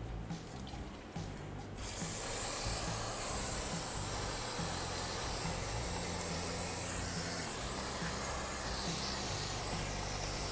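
Aerosol brake parts cleaner spraying through its straw onto a new brake rotor: a continuous hiss that starts about two seconds in.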